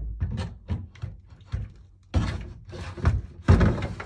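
Plastic seat of an Archimedes bath lifter being fitted onto its frame in a bath: a string of knocks and clatters as it is set down and slid into place, the heaviest about two, three and three and a half seconds in.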